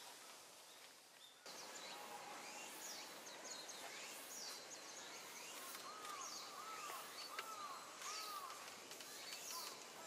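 Small wild birds chirping over a steady outdoor hiss: many quick, high notes sweeping downward, and in the second half a run of four arching notes, each rising then falling. The background jumps louder about a second and a half in.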